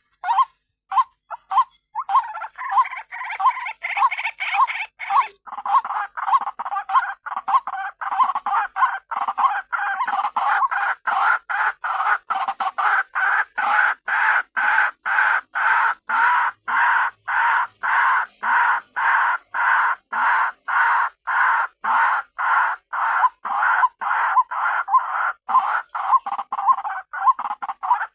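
White-breasted waterhen (ruak-ruak) calling: a long unbroken series of repeated notes, about two to three a second, the calls growing denser and fuller from about two seconds in. This is a lure call of the kind played to draw waterhens in for trapping.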